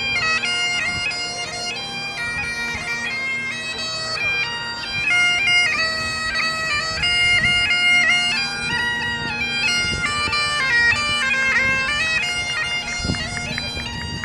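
Bagpipes playing a quick, ornamented marching tune over steady held drones.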